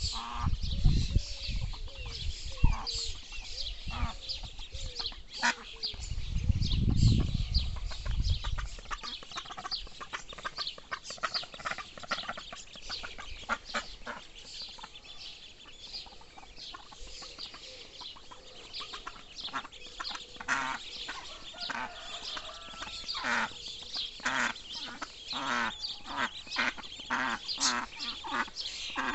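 Domestic ducklings peeping rapidly and continuously as they forage, joined by denser calling from the ducks in the second half. A low rumble on the microphone at the start and again around seven seconds in.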